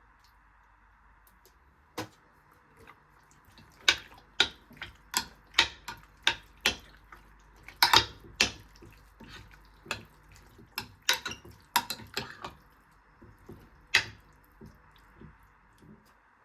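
A run of sharp taps and clicks, irregular, roughly one or two a second, loudest around the middle, over a faint steady hiss.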